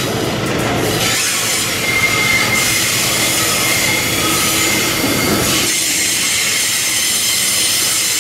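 Covered hopper cars of a long, heavy freight train rolling past on a curve, their wheels squealing against the rails over a steady rolling rumble. The squeal rises briefly about two seconds in.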